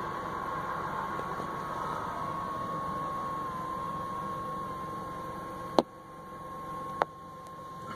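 Car engine idling, heard from the trunk as a steady hiss and hum with a thin steady whine over it. Two sharp clicks come about six and seven seconds in.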